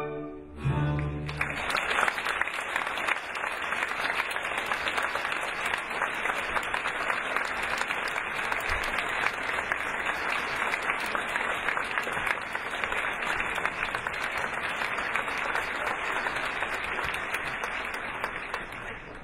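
Theatre audience applauding steadily after a ballet number, thinning near the end. The orchestra's final chord dies away in the first second.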